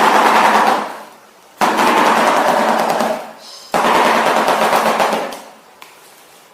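A bird's rapid, dense rattle, given in three bursts about two seconds apart, each starting abruptly and fading away over about a second and a half.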